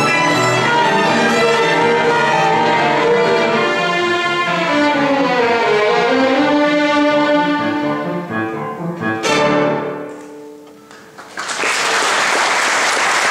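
Youth string ensemble of violins playing the close of a fast dance, ending on a sharp accented final chord about nine seconds in that rings away. Audience applause starts near the end.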